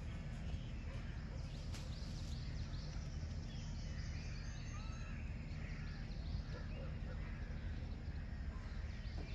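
Many short chirps and calls, with a steady low rumble beneath.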